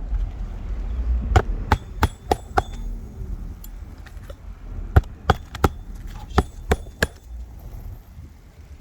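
Hammer blows on asphalt roof shingles during a single-shingle replacement: two quick runs of sharp strikes, about five and then six, roughly three a second, with a pause between them.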